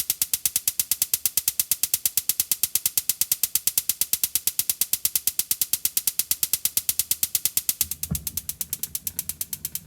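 Gas oven's electric spark igniter clicking rapidly and evenly, about seven clicks a second, while the knob is held to light the grill burner. About eight seconds in, a low rumble joins the clicking as the burner catches.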